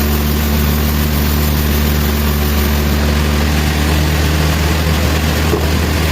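Sawmill machinery running, a steady heavy engine drone with a low hum under a noisy wash.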